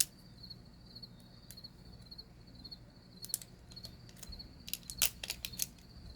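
Cricket chirping in a steady run of short, high repeated chirps, with a few sharp clicks about three seconds in and a quick cluster of them around five seconds in.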